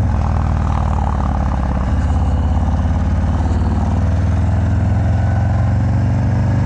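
Harley-Davidson FXDR's Milwaukee-Eight V-twin, fitted with a 117 kit, running loud through a Bassani Road Rage exhaust as the bike is ridden at a steady throttle, its note settling slightly about two seconds in.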